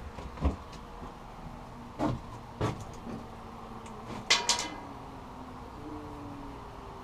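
A few separate knocks and clanks of steel parts and tools being handled on a workbench, the loudest cluster a little past the middle with a short metallic ring.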